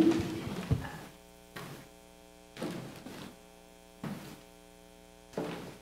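Steady electrical mains hum from the church sound system, a low buzz with a stack of overtones. Over it come a couple of knocks and rustling at the lectern microphone near the start, then soft footsteps on carpeted steps about once every second and a bit.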